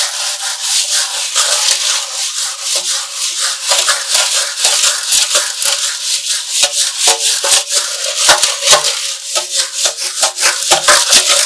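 Balls and two timing chains rattling around inside a motorcycle petrol tank as it is shaken and turned by hand: a dense, continuous clatter of many small clicks, scouring rust off the tank's inner walls.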